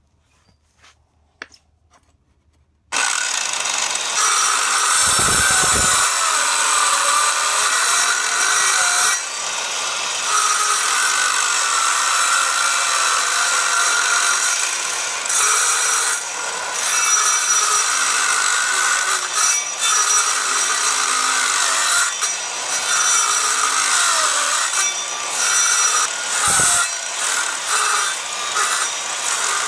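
Old corded circular saw starting up about three seconds in, then running and cutting through a wooden board, with its level dipping now and then during the cut.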